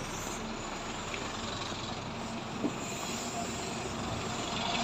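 Steady rumble and hiss of a large vehicle running close by, with one light tap about two and a half seconds in.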